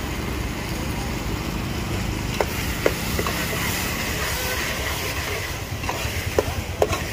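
A long metal ladle stirring a thick pea curry in a large aluminium pot, with a few sharp clinks against the pot, two about halfway through and two near the end, over a steady low rumble.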